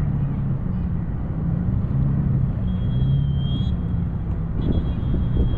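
A steady low rumble, with a faint thin high tone twice in the second half.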